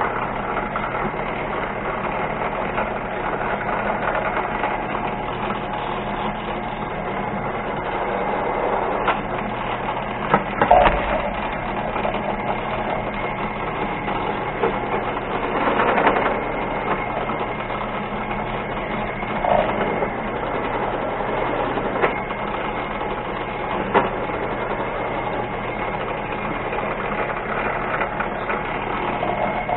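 Mini lathe running steadily while a countersink cuts a hole in a steel part, with a few brief louder scraping squeals as the cutter bites.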